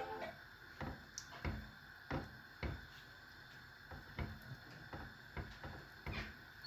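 A cooking utensil knocking against a frying pan as tomato sauce is stirred: irregular short knocks, about one every half second to a second.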